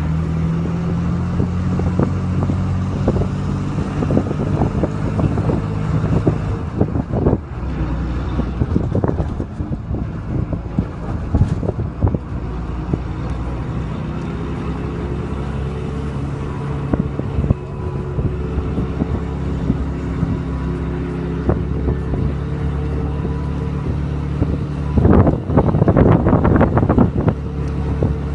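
Engine and road noise heard from inside a moving vehicle: a steady engine hum that shifts in pitch as the speed changes, with frequent knocks and rattles. A louder clatter of rattling comes about 25 seconds in.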